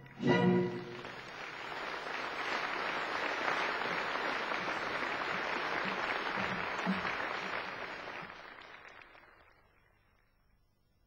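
A last loud chord of the orchestral dance music, then audience applause that fades away over the last few seconds.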